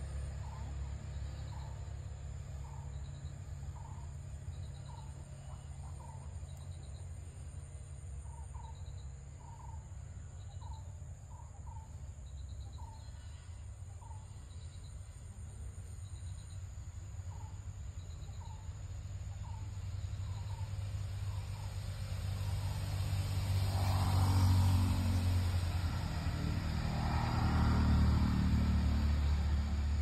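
Outdoor ambience: a steady low rumble, with a short chirp repeated about once a second. Near the end the rumble swells louder twice.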